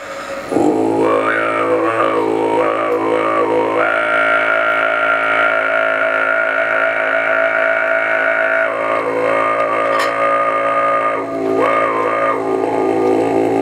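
Tuvan kargyraa throat singing: one long, deep drone held on a single breath, with a whistling overtone melody above it that shifts at first, holds on one high note through the middle, then shifts again near the end.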